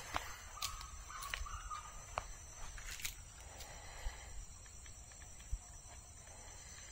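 A bird calls once, a wavering call lasting about a second near the start, over faint open-air ambience with a few short sharp clicks.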